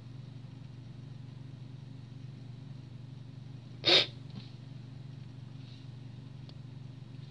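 A single sharp sneeze about four seconds in, over a steady low hum.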